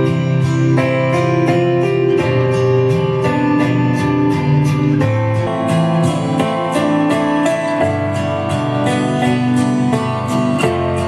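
Acoustic guitar music played back through a studio monitor speaker driven by a homemade LM3886 bi-amplifier, with evenly picked notes at about three a second over a steady bass line.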